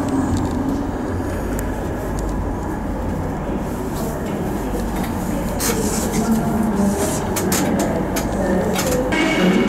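Inside a Class 319 electric multiple unit running slowly into a terminus platform: steady low rumble of the wheels and running gear, with a few sharp clicks in the second half as the wheels cross the pointwork.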